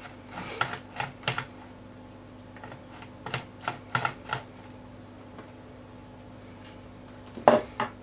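Small clicks and taps from hands handling the plastic bottom case of an HP Pavilion Gaming 15-ak laptop during disassembly: a few short clusters of light clicks, with one louder knock near the end.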